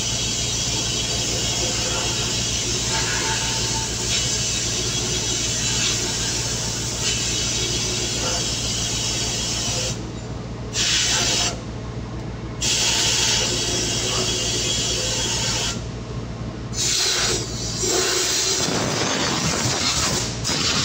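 Machinery running steadily with a low hum and a broad hiss; the hiss drops out briefly a few times, and the low hum stops near the end.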